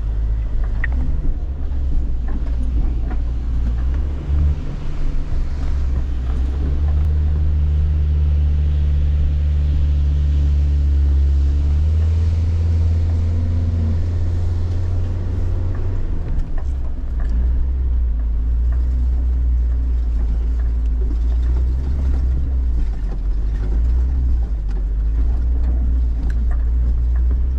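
Vehicle engine running under load with a steady low drone, working hardest from about six to sixteen seconds in as it climbs a rough track, heard from inside the cabin.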